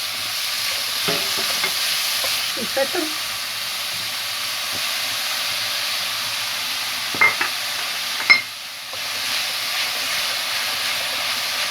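Butter sizzling in a pan as shrimp, calamari and mushrooms sauté and are stirred, a steady frying hiss. Two sharp clicks come about seven and eight seconds in, and the sizzle dips briefly just after the second.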